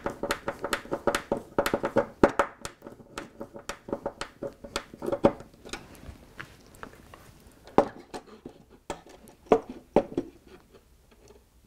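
Small clicks and knocks of plastic terminal blocks and tools being handled against a plywood board, in a quick run for the first half, thinning to a few sharper taps later on.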